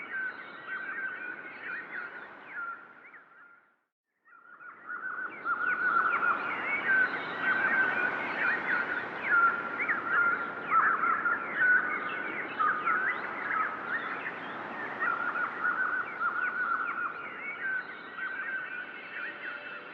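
Dense chorus of many small birds chirping and twittering, fading out to silence nearly four seconds in, then fading back in and carrying on.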